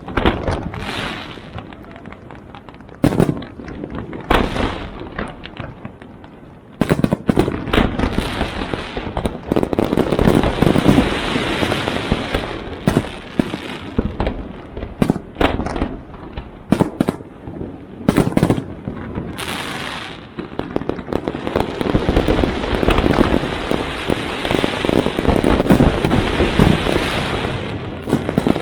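Fireworks going off: a few separate loud bangs at first, then from about seven seconds in a dense run of overlapping bangs and crackling, with louder booms standing out.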